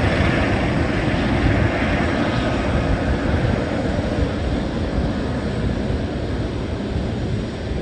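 Jet engines of a Boeing 747 freighter running with a loud, steady rush of noise that eases off slightly towards the end.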